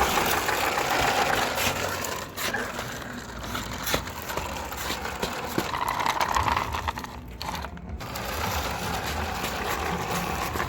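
Small plastic toy cars clattering and rattling as they are handled and loaded into a toy dump truck.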